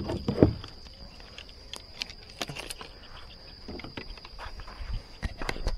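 A steady high-pitched insect drone throughout, with scattered knocks and clatter of fishing gear being unloaded and handled. The loudest knocks come right at the start and again about five seconds in.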